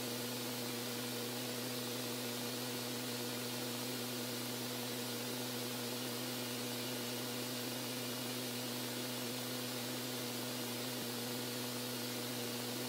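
Steady hiss with a low, even hum underneath, unchanging in level.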